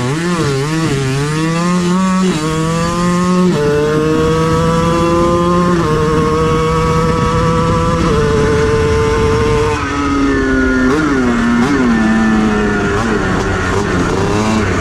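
Yamaha Blaster big-bore 240cc two-stroke single on a homemade drag minibike making a full-throttle eighth-mile pass: the revs waver at the launch, then climb through the gears with a pitch drop at each of several upshifts. About ten seconds in the throttle is shut and the engine falls to a lower, unsteady note with a few short blips as the bike slows.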